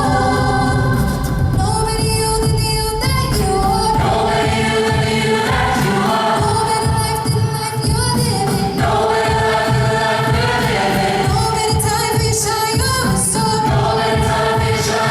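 A vocal ensemble singing in harmony, several voices moving together from chord to chord.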